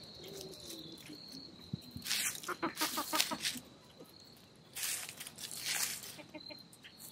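Backyard hens foraging: soft clucking and rustling bursts of scratching in wood-chip litter, over a steady high insect trill.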